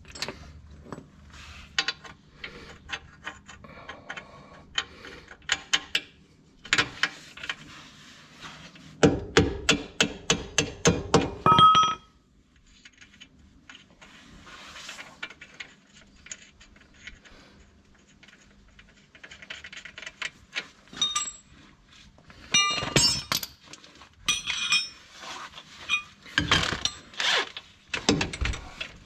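Hand tools working on metal: scattered clinks and knocks, with a rapid run of loud, ringing metallic strikes about nine seconds in that lasts some three seconds, and another cluster of knocks near the end.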